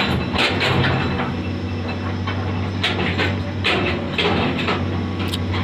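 Komatsu PC210 hydraulic excavator's diesel engine running steadily under load, with the clatter and scrape of rocks as the bucket digs into and spreads a pile of broken stone and soil. Several sharp knocks of stone stand out over the engine.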